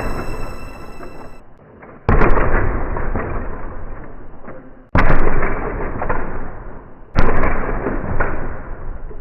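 Three sudden, heavy crash-like booms, about two and a half seconds apart, each fading away over a couple of seconds. These are thunder-like cinematic impact hits in the soundtrack, with no tune.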